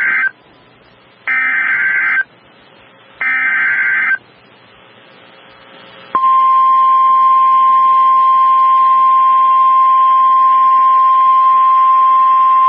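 Emergency Alert System SAME header: the tail of one data burst, then two more bursts of warbling, modem-like tones, each about a second long with a second of quiet between. About two seconds after the last burst, the steady single-pitch 1050 Hz NOAA Weather Radio alert tone starts abruptly and holds, the signal that a warning broadcast follows.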